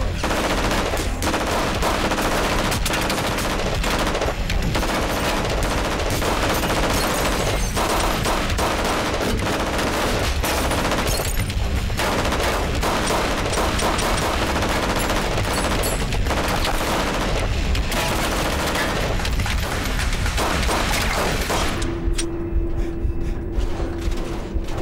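Sustained exchange of gunfire, many shots in quick succession through most of the stretch. Near the end the shooting thins out and a steady low tone comes in.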